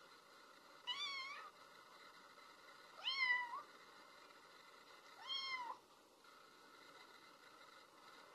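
A cat meowing three times, about two seconds apart, each a short call that rises and falls in pitch.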